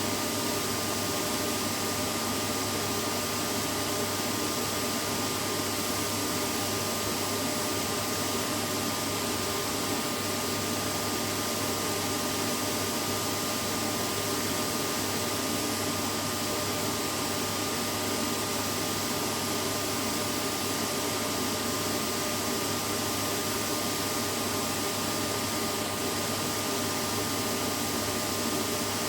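Vacuum cleaner running steadily: an even, unbroken motor noise with a faint steady whine in it.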